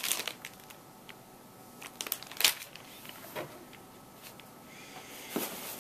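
Plastic soft-bait packaging crinkling and crackling as it is handled, in scattered separate crackles, the loudest about two and a half seconds in, with a denser rustle near the end.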